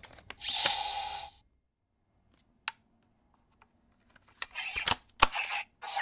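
CSM V Buckle transformation-belt toy clicking and playing a burst of electronic sound effect about half a second in. Further sharp plastic clicks and bursts of electronic effects follow from about four and a half seconds.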